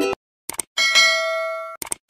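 Background music cuts off at the start. Then comes a subscribe-button sound effect: a quick double click, then a bright bell ding that rings for about a second and fades, and another double click near the end.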